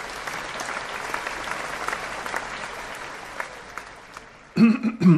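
Applause that slowly fades over about four seconds. Near the end a man clears his throat loudly.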